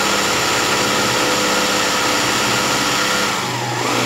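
Sewing machine running steadily at speed while satin-stitching a zigzag band of embroidery. It eases off slightly near the end and then stops abruptly.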